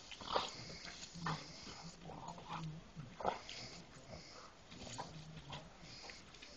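Black Labrador retriever growling and grunting in rough play, in short low stretches, with three sharper, louder sounds mixed in.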